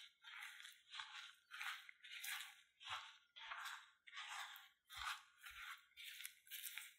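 Silicone spatula stirring corn starch into mashed potato in a ceramic bowl: faint, rhythmic crunching strokes, about two a second, with a few dull thumps.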